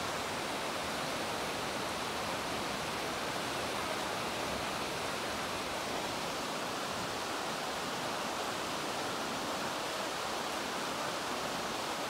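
Rushing water of a shallow, rocky stream tumbling over rapids: a steady, even rush.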